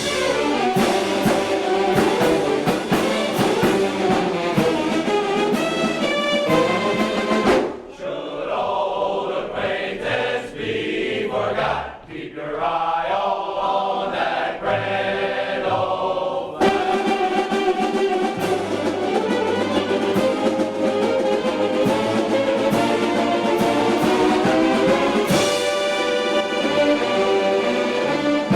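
Mummers string band playing its parade show tune: full ensemble music with a steady beat. About eight seconds in, the sound drops to a softer, thinner passage. The full band comes back at about sixteen seconds.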